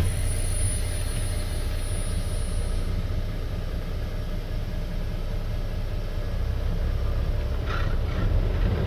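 Tractor-trailer truck's diesel engine running steadily as the rig pulls away slowly in low gear, a low rumble heard from inside the cab.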